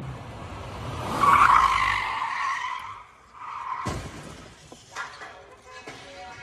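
Car tyres squealing in a skid for about two seconds, then a shorter squeal and a sudden sharp bang a little before four seconds in.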